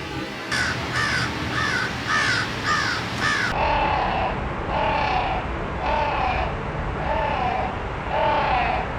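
A bird's short, arched calls repeated about twice a second. About three and a half seconds in they carry on slowed down, at about half the pitch and more spread out.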